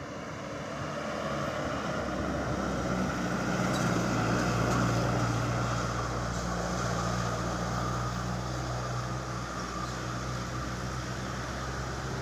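A large diesel engine running with a steady low hum over road noise. It grows louder over the first four to five seconds, then eases off a little.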